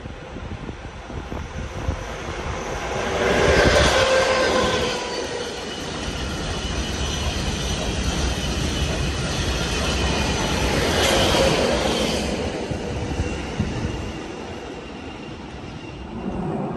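Makies freight train of green gravel hopper wagons rolling past on the station tracks: a steady rumble of wheels on rail, swelling loudest about four seconds in and again around eleven seconds, with some ringing wheel tones, then easing off near the end.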